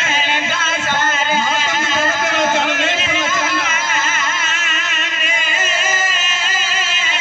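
A man's voice chanting a masaib lament in a wavering, melodic tune, amplified through a microphone.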